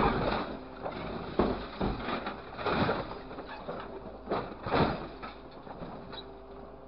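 Mixed scrap metal clattering and crashing into a steel container as an orange-peel grapple releases its load, with several loud crashes in the first five seconds. Under them the steady hum of the handling machine's engine and hydraulics runs on, and is left alone near the end.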